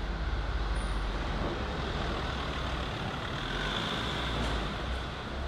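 Steady outdoor road-traffic noise: an even low rumble with a hiss over it and no distinct events.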